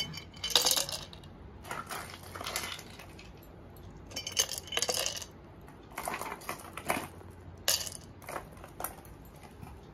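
Ice cubes being dropped into a glass, clinking and clattering against the glass and each other in about seven separate drops.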